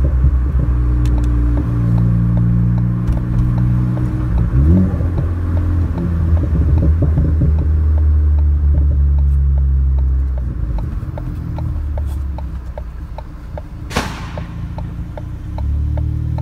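Tuned Ford Focus ST engine and exhaust heard while driving, a steady low drone that rises in pitch briefly about five seconds in, then settles to a lower, quieter note. From there a faint, rapid, even ticking runs alongside it. A single sharp pop stands out near the end.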